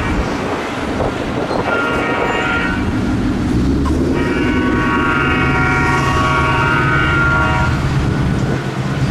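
Diesel locomotive air horn sounding several notes at once as a freight train approaches: a short blast about one and a half seconds in, then a long blast from about four to eight seconds, over the steady low rumble of the train, typical of a grade-crossing horn sequence.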